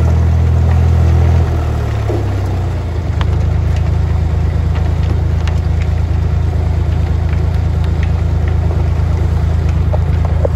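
Massey Ferguson 245 tractor engine running. About a second and a half in its note drops and it settles to a steady idle.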